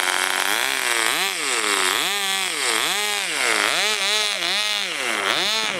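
Small model-aircraft engine on a hand-held RC plane, running steadily and then revved up and down repeatedly, about once a second, as a throttle run-up before launch.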